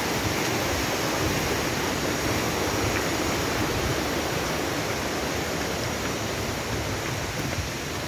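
Steady rush of a waterfall and its rocky stream, a constant loud hiss of falling water that grows slightly fainter toward the end.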